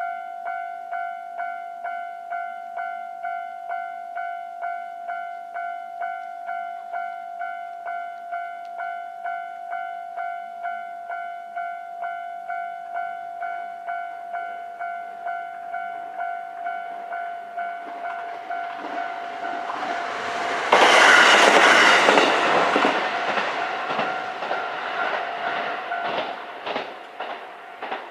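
Level-crossing warning bell dinging steadily, about two and a half strikes a second. About twenty seconds in, a KiHa 122 single-car diesel railcar passes the crossing. Its sudden rush is the loudest sound, and it fades with wheels clicking over the rail joints while the bell keeps ringing.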